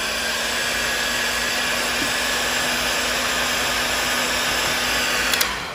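Heat gun blowing steadily, an even rush of air with a low hum, as it shrinks heat-shrink tubing over a soldered wire joint. A click near the end, after which the blowing dies away.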